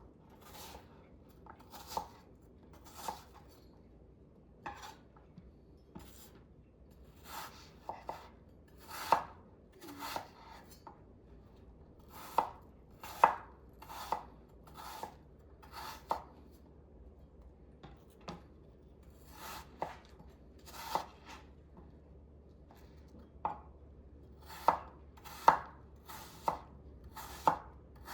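Knife cutting up a peeled apple, irregular sharp chopping knocks about once a second with a few short pauses.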